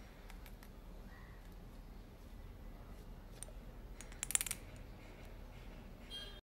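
Small clicks and taps from handling a plastic skincare dropper bottle, with a quick cluster of louder clicks about four seconds in, over a faint low hum.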